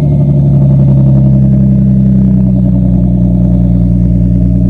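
A car's engine and exhaust running loudly and steadily, holding an even pitch throughout.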